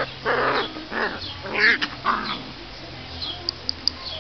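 Puppies yelping at play: four short, high cries in the first two and a half seconds, then a few light clicks near the end.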